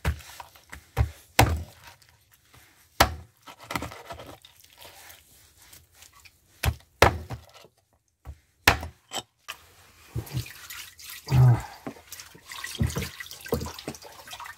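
Irregular sharp knocks and clinks of kitchen work with the chicken, about ten of them over the first nine seconds. From about ten seconds in there is a busier stretch of dripping and trickling liquid, with one longer, louder sound about eleven seconds in.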